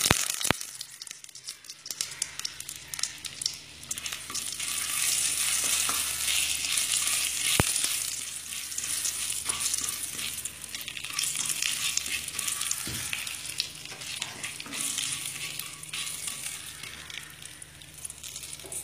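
Cumin seeds and a bay leaf sizzling in hot ghee in a pan while being stirred with a spatula, with a few sharp clicks; this is the whole-spice tempering frying.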